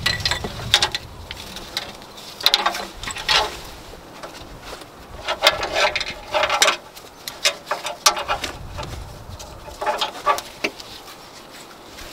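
Metal spring buckles on a polyester mounting strap clinking and rattling against a steel tire carrier as the strap is wrapped around it, in several short clusters of clicks.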